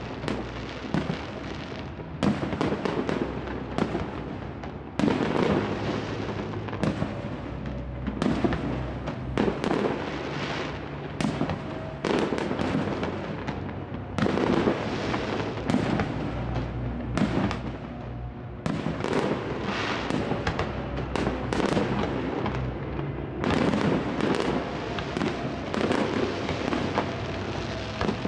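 Fireworks display: aerial shells bursting one after another in a dense, continuous barrage of bangs.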